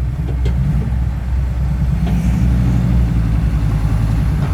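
Heavy dump truck's diesel engine running steadily at low revs, a deep even rumble.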